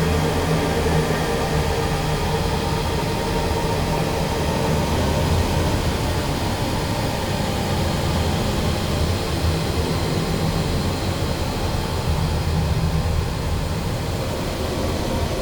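Steady, dense wall of noise over a held low drone, part of a noise-music track, with no beat or melody.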